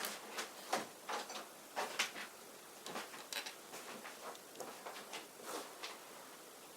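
Small plastic toy parts and packaging being handled, giving irregular light clicks and rustles.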